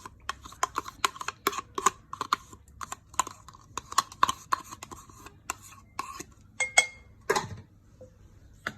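Spoon or fork clicking and tapping against a bowl and containers, about three light clicks a second, as eggs and yogurt go into the bowl for the gratin topping. A louder knock comes near the end.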